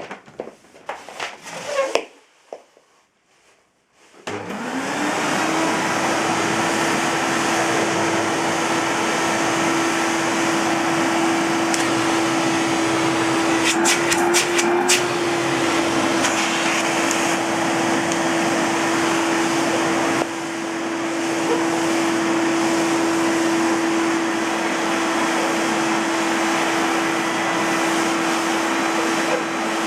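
A few handling clicks, then a Philips HR6242 vacuum cleaner's 700 W motor switches on about four seconds in, spins up quickly and runs steadily with a loud rush of air and a steady whine. Midway there are a few clicks and the pitch rises briefly.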